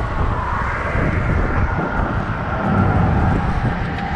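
Steady low rumble of wind on the microphone mixed with traffic noise from the bridge roadway.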